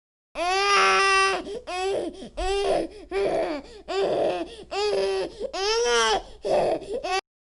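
Infant crying in a rhythmic series of about eight short, high-pitched wails, each rising and falling, that stops abruptly near the end.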